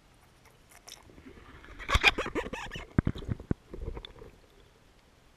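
GoPro's waterproof housing knocking and scraping against the ice walls of a fishing hole as it floats and swings. A flurry of clicks and crunchy knocks starts about a second in and is loudest and sharpest between two and four seconds.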